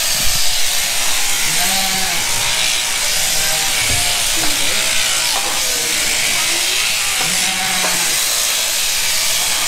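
Electric sheep-shearing handpiece running steadily as it cuts wool from a ewe's belly and hind legs, with sheep bleating twice, about a second and a half in and near the end.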